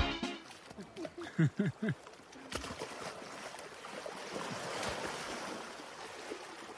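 River water splashing and washing steadily as two baby elephants wrestle in it, from about two and a half seconds in. Before that, a few short pitched calls.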